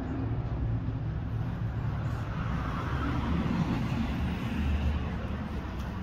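Steady rumble of road traffic.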